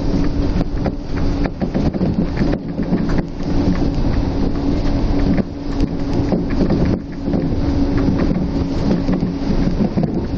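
Cabin noise of a Shonan Monorail suspended monorail car running at speed: a loud, continuous rumble with a steady low hum through it, dipping briefly twice in the middle.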